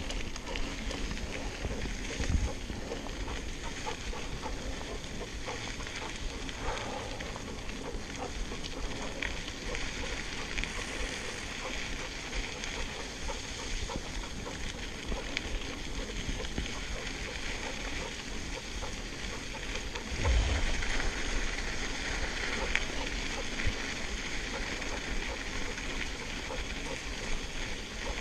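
Giant Trance Advanced SX full-suspension mountain bike rolling along a gravel desert trail: knobby tyres crunching and crackling on loose grit, over a low rumble from air on the microphone. Two heavier thumps from bumps, about two seconds in and about twenty seconds in.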